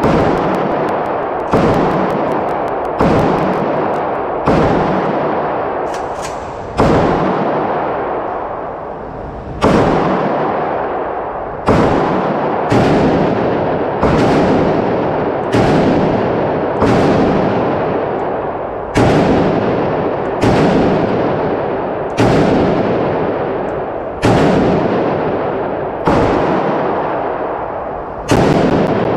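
SAM7R AK-pattern semi-automatic rifle in 7.62x39mm firing about eighteen slow, deliberate single shots, roughly one a second, with a longer pause near a third of the way in. Each shot rings out in the echo of an indoor range.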